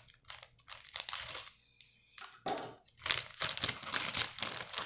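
Packaging being handled and crinkled in irregular bursts.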